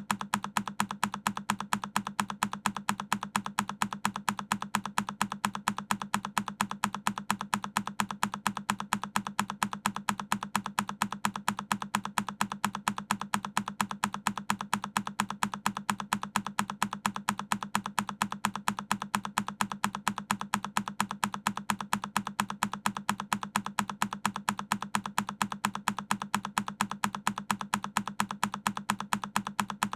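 A single key on a Keychron K10 mechanical keyboard pressed over and over: the same key-press click repeated at an even, fast rate, several times a second.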